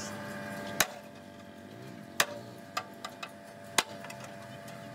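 Hammer blows on metal: three loud, sharp strikes about a second and a half apart, with a few lighter taps between them.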